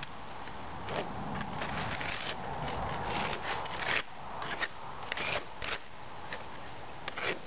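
Moulding sand being packed by hand into a metal casting flask, then a metal straightedge scraping across the flask top to strike off the excess sand: a series of short, irregular gritty scrapes and clicks.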